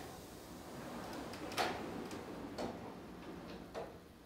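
Solar panels sliding inward on drawer slides, driven by pneumatic air cylinders: a steady rushing noise with a string of sharp clicks and clacks.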